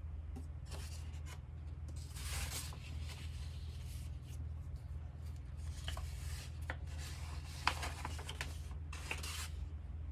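Large paper sheets of a softcover poster book rustling and sliding as its pages are unfolded and turned by hand, in several bursts, with one sharp tap about three-quarters of the way through. A steady low hum runs underneath.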